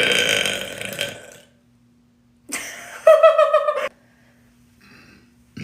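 A woman letting out two loud burps. The first is already under way at the start and fades out over about a second and a half. The second comes about two and a half seconds in and ends in a higher, wavering tone.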